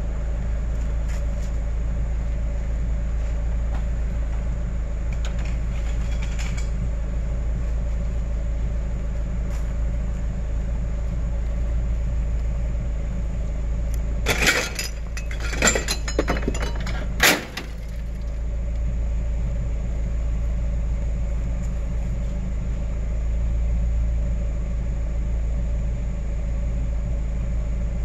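Steady low vehicle rumble, with a short cluster of sharp clattering knocks about halfway through.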